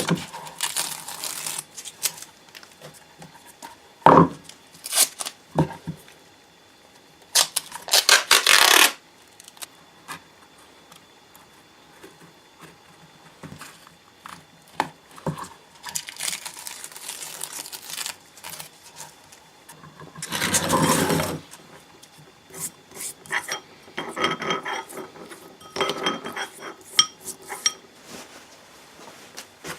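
Workshop handling of metal parts: scattered clinks and knocks, with several noisy bursts of a second or two each, spaced a few seconds apart.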